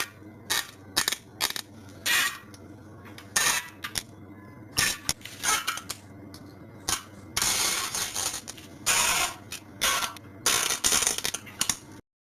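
A run of about fifteen fart sounds, one after another with short gaps between them. Most are brief, and a few in the second half are drawn out to about a second each.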